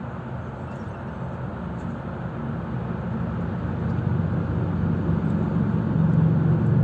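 Motor vehicle running: a steady low rumble with road-type noise, growing louder over the last few seconds.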